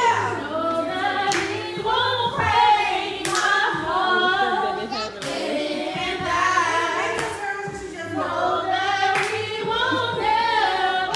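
Karaoke singing: a woman sings into a microphone, with other voices singing along over music.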